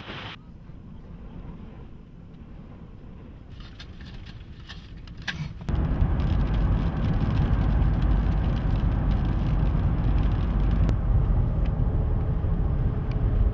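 Road noise heard from inside a moving vehicle: a loud, steady low rumble of engine and tyres that starts suddenly about six seconds in, after a stretch of faint low rumble with a few clicks.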